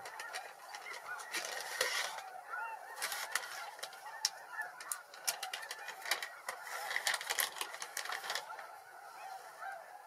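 A large flock of snow geese calling, a constant chorus of many overlapping honks, with a crackling noise over the calls at times.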